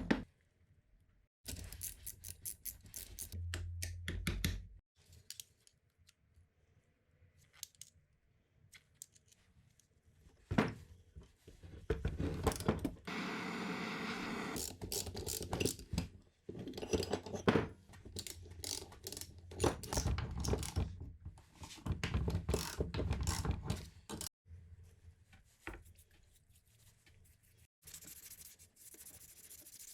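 Workshop noises from handling engine parts and hand tools: irregular clicks, knocks and scraping in short choppy bursts, broken by quiet gaps.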